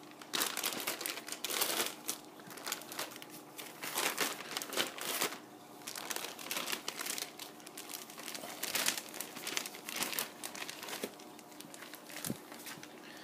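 Thin clear plastic bags around aquarium plants crinkling and rustling in irregular bursts as they are handled and unwrapped.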